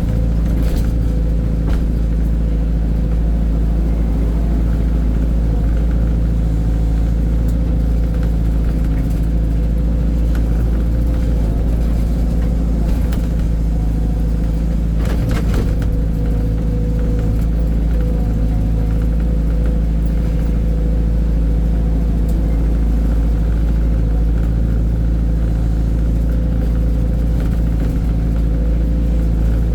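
Heavy diesel engine of earthmoving machinery running steadily at a constant speed, with a few brief knocks and clatters, the clearest about halfway through.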